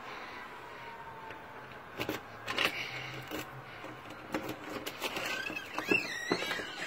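Clicks and knocks of a front door's latch and handle as the glass-paned door is unlocked and pushed open, with a squeaky hinge creaking near the end.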